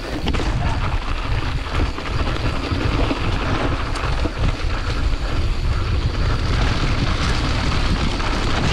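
Wind buffeting the microphone and a Giant Trance 27.5 mountain bike's tyres rolling over a dirt trail at speed: a constant low rumble under a rushing hiss, with small rattles and knocks from the bumps.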